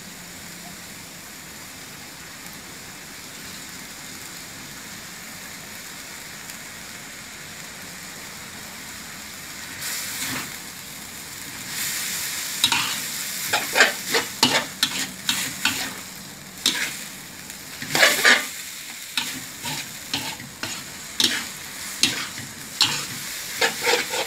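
Stir-fry in a wok: sliced bamboo shoots, pork and glass noodles sizzling steadily in hot oil. From about ten seconds in, a metal spatula scrapes and clanks against the wok in quick, irregular strokes as the glass noodles are tossed in with the bamboo shoots.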